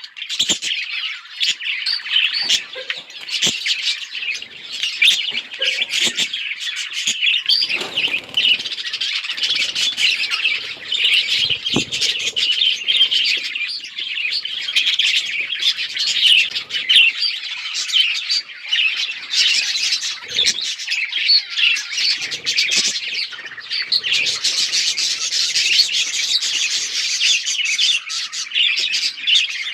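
A flock of budgerigars chirping and chattering continuously, a dense overlapping mix of short warbles and squawks, with a few soft knocks.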